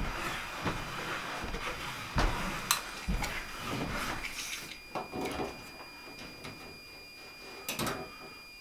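Wall boards being handled and fitted by hand: scraping and rustling of wood with several sharp knocks, the loudest about two seconds in and another cluster near the end, over a faint steady high tone.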